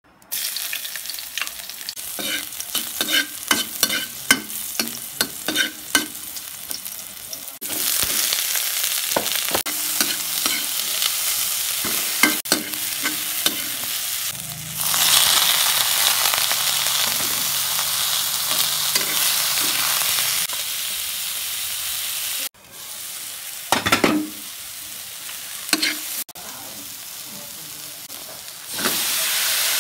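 Diced onion and sliced bologna sizzling in oil in a metal wok, with a spoon and spatula clinking and scraping against the pan as they are stirred. The first stretch has many sharp clinks. After that the sizzle is a steady hiss, loudest in the middle, and it breaks off and resumes abruptly several times.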